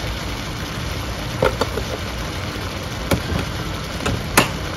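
Raw chicken breast pieces frying in oil in a pan, a steady sizzle with a low rumble under it, broken by a few sharp clicks.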